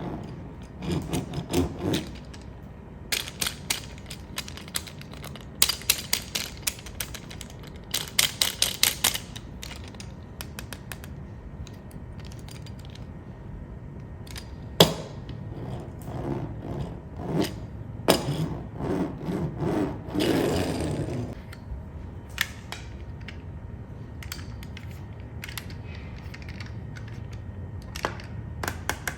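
Irregular clicking, rattling and scraping of small mechanical parts, in short bursts with a few sharper knocks.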